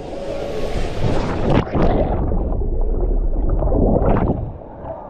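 Water churning and splashing close to the microphone, with heavy low rumble. It hisses brightly for the first two seconds, flares up again about four seconds in, then dies down.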